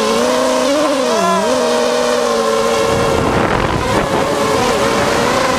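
A motor running steadily, its pitch dipping briefly and recovering about a second in.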